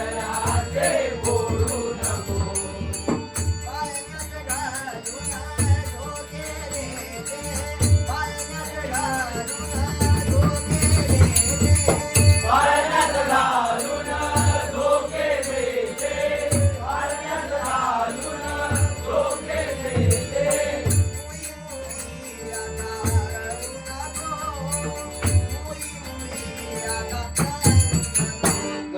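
Devotional bhajan: singing, joined by other voices, over a drum beating a steady rhythm and jingling hand cymbals.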